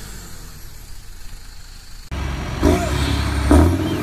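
Farm tractors' diesel engines working under load in a tug of war. About two seconds in the sound cuts abruptly from a fainter engine hum to a louder, deeper steady engine drone from another pair of tractors.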